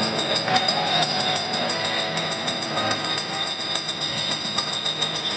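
A holiday ride train running, with a steady high squeal over a clattering rumble.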